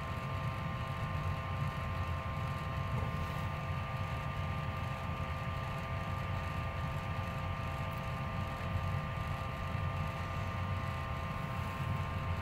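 Steady low rumble and hum with a few faint constant tones above it, the even background noise of a running machine or room, with no distinct events.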